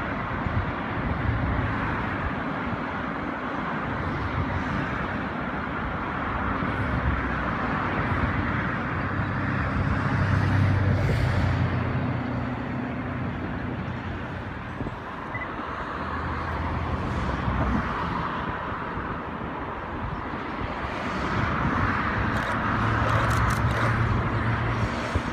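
Distant train noise across a long arched viaduct: a freight train's wagons rumbling and rolling over the bridge, swelling in the middle. Near the end a second, shorter train rumbles in.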